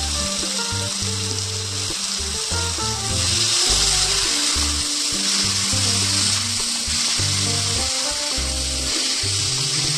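Chopped onions and tomatoes sizzling in a kadhai, the sizzle growing louder from about three seconds in as a spatula stirs them, under background music.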